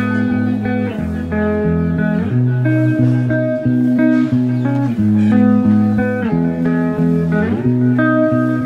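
Background music: an instrumental track led by guitar.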